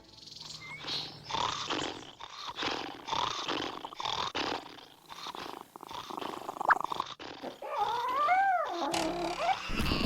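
Cartoon animal vocal effects: a run of short, rough, grumbling sounds, then a pitched cry that rises and falls near the end.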